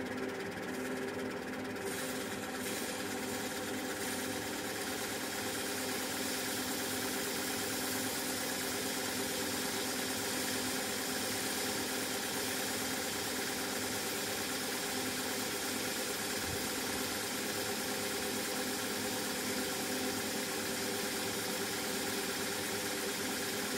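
Motor-driven malt-cleaning machine running steadily with a hum, malt grains hissing as they pour in and run over its sieve screens; the hiss grows stronger about two seconds in.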